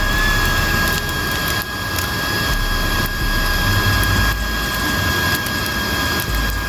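Wood fire in a fire pit crackling and popping with many small sharp snaps, over a steady high whistle.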